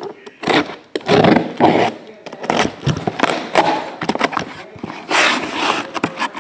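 Shrink-wrapped trading-card hobby boxes being pulled out of an opened cardboard shipping case and set down. The cardboard and plastic wrap scrape and rustle in irregular bursts, loudest about a second in and again near the five-second mark.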